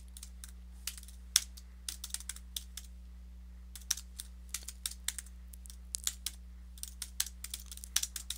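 Typing on a computer keyboard: irregular key clicks in quick runs, over a faint steady low hum.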